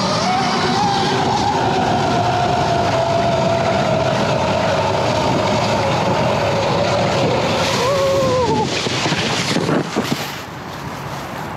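Sur-Ron electric dirt bike's motor whining over heavy wind noise on the microphone while riding. The whine slowly falls in pitch, rises briefly about eight seconds in, then drops away, and the overall level falls about ten seconds in, leaving mostly wind.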